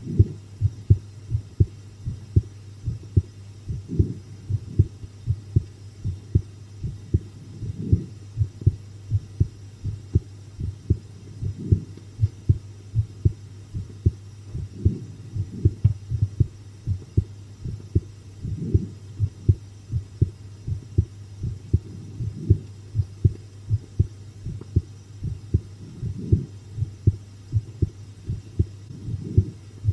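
A person's heartbeat, close-miked: a steady run of soft low beats over a constant low hum, with a stronger beat every few seconds. The uploader thinks the heart is beating faster than usual from the fright of a scary video.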